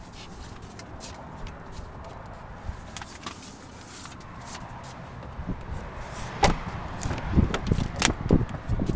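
The left rear door of a 2012 Cadillac CTS is opened and handled. Over the second half come a run of sharp clicks and low thumps, the loudest a little after six seconds and at about eight seconds.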